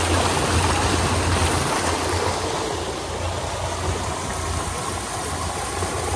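Tour boat's engine running with a steady low hum, under the constant rush of water past the hull.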